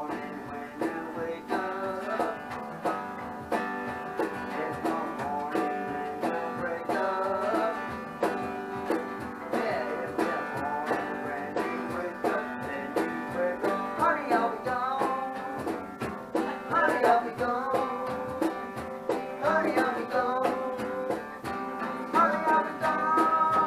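Band playing a song unplugged on guitars: steady strummed chords with melody notes over them.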